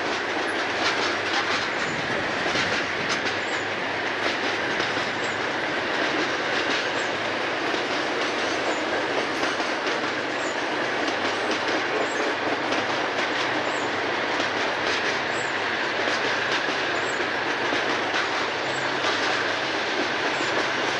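Freight cars of a passing train rolling by with steady wheel clatter and a high wheel squeal. From about halfway in, the low drone of Conrail diesel locomotives joins in as they approach.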